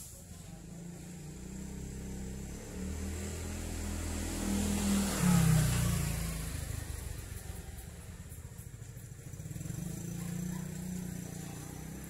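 A motor vehicle's engine passing close by. It grows louder to a peak about five seconds in, its pitch falls as it goes past, and it fades away. A second, fainter engine swells near the end.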